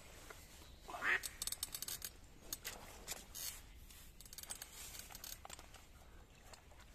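A live decoy duck quacking: one loud quack about a second in, followed by a run of short, sharp crackles.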